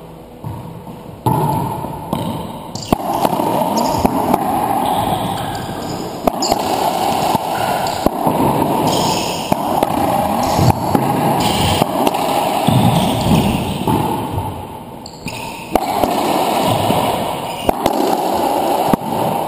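Racquetball rally: the rubber ball cracks off racquets and the court walls again and again, echoing in the enclosed court. Under it runs a steady rushing noise that starts suddenly about a second in and dips briefly near the end.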